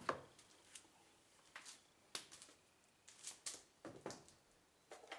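Faint, scattered clicks and rustles of parts being handled, a dozen or so short sounds at irregular intervals.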